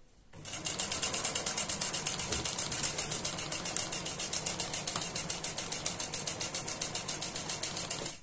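Electric sewing machine stitching at a steady speed in a fast, even rhythm. It starts about half a second in and stops near the end.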